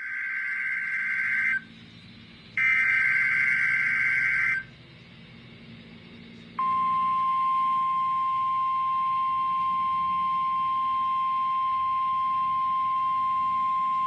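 NOAA Weather Radio SAME header: two bursts of screechy digital data tones, each one and a half to two seconds long, carrying the coded Required Weekly Test message. About six and a half seconds in, the steady 1050 Hz weather radio alert tone starts and holds at one pitch. That tone is the signal that switches on alert receivers.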